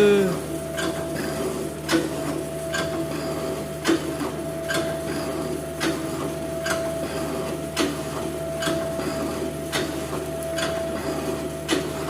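Metal shaper machine running, its ram sliding forward and back with a sharp knock about once a second at each stroke, over a steady motor hum.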